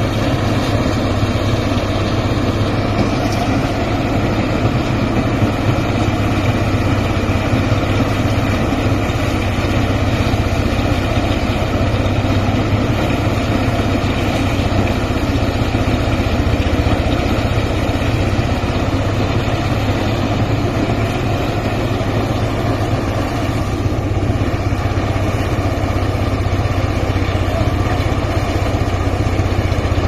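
Engine-driven portable rice thresher running steadily as bundles of rice stalks are fed into its drum, a constant mechanical drone.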